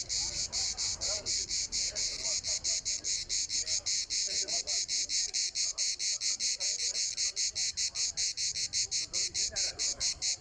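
Cricket chirping: a high-pitched, evenly pulsed trill, about five chirps a second, steady throughout.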